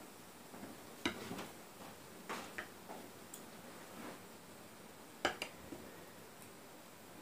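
A large kitchen knife cutting down through a fresh white cheese, its blade tapping against the glass plate beneath in a few sharp clicks: one about a second in, two a little after two seconds, and two around five seconds.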